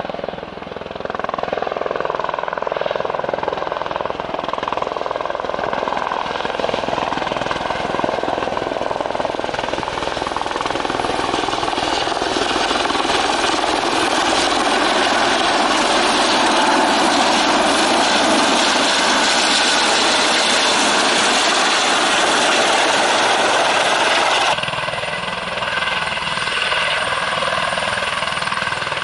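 Airbus H130 (Eurocopter EC130 T2) helicopter coming in to land: steady rotor chop and turbine noise that grows louder as it nears, then changes abruptly about 24 seconds in as it hovers low over the ground.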